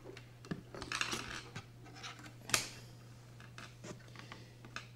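Small clicks, scrapes and rustles of small objects being handled on a tabletop, with a brief scratchy patch about a second in and a sharp click about two and a half seconds in. A steady low hum runs underneath.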